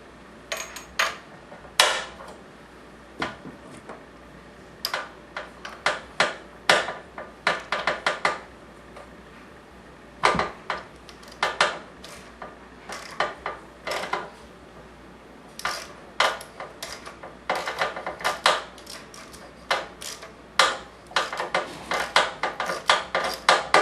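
Ratchet and spark plug socket clicking and clinking in irregular runs of sharp metal clicks as the spark plug is worked loose. The socket is a tight fit on the plug.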